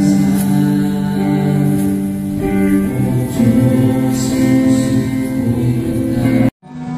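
Music with guitar and singing, cut off abruptly about six and a half seconds in, after which music starts again.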